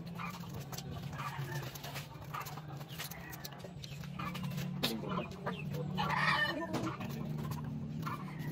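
Chickens clucking in the yard, with a louder rooster crow about six seconds in, over a steady low hum.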